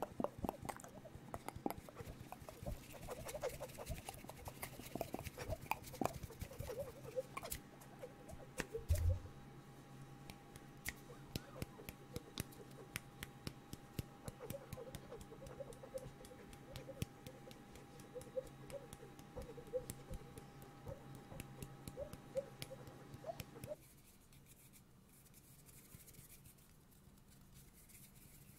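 Close-miked ASMR mouth clicks and hand sounds into studio microphones, made to imitate nature sounds: a dense run of quick sharp clicks and small wavering noises, with one loud low thump about nine seconds in. It gets quieter in the last few seconds.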